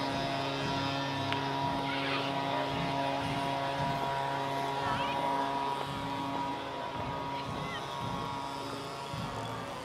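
A steady engine drone holding one pitch, which shifts and drops slightly about six seconds in, with voices over it.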